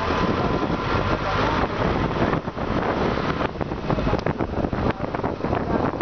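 Wind buffeting the microphone over the rushing road noise of a vehicle driving at speed, heard through an open side window.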